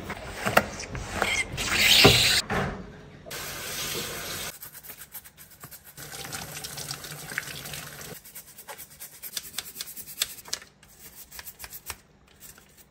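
Kitchen tap water running over a dishwasher's mesh filter as it is rinsed, loudest in the first few seconds. It then turns quieter, with rubbing and many small clicks as the plastic filter is handled and scrubbed.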